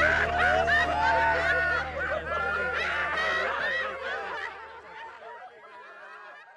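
A crowd of many voices cheering, shouting and whooping at once, fading out over the last couple of seconds.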